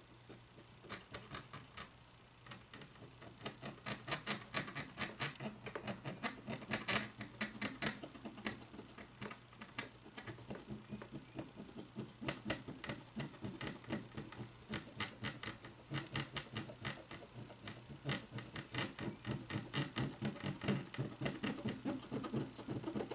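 Cotton swab scrubbing back and forth over the button contacts of a cordless phone's circuit board to clean off grime: quick, rhythmic strokes, several a second, growing louder a few seconds in.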